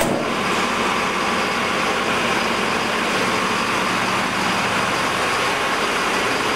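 Fire engine's engine running steadily close by, an even continuous drone.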